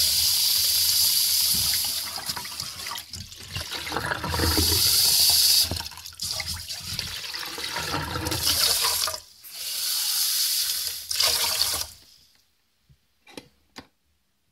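Tap water running into a pot of rice as the rice is washed, then rinse water poured off into the sink, in several spells with short breaks. Near the end the water stops, leaving a few faint knocks.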